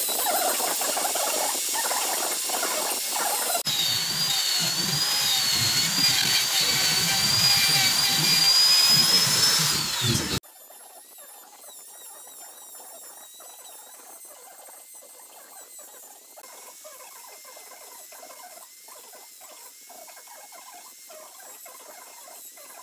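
Handheld electric rotary carving tool with a burr bit grinding into wood, a high whine that wavers as the bit bites. The sound changes abruptly about three and a half seconds in. At about ten seconds it drops much quieter, to a steadier whine broken by short grinding strokes.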